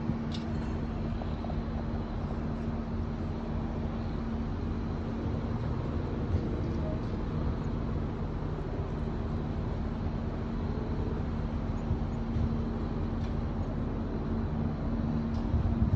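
A steady low motor drone holding one pitch, with a haze of outdoor noise over it.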